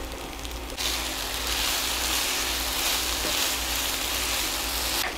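Mixed vegetables tipped from a can into a hot pan of chowmein start sizzling about a second in, a steady hiss that carries on while they sit in the pan.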